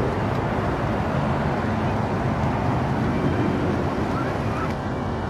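Steady outdoor background noise: a low rumble with a hiss over it, even throughout.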